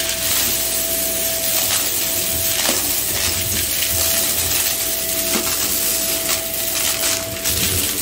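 Shark upright vacuum cleaner running on carpet, a steady motor whine under a rush of airflow, with small hard debris clicking and rattling as it is sucked up.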